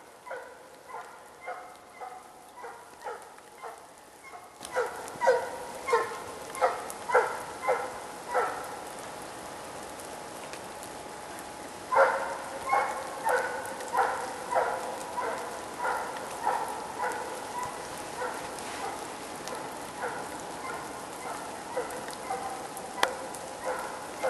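Finnish hound (finnstövare) baying on a hare's trail: a steady run of barks at about two a second, getting louder about five seconds in, breaking off for a few seconds, then starting again and slowly fading.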